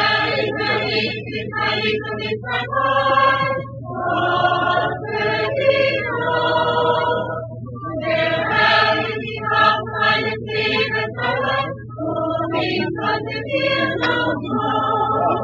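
A large crowd singing together like a choir, many voices in chorus, over a steady low hum.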